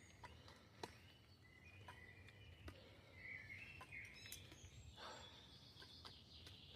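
Faint birdsong: scattered chirps and short warbles from small birds over quiet background noise, with a faint click about a second in.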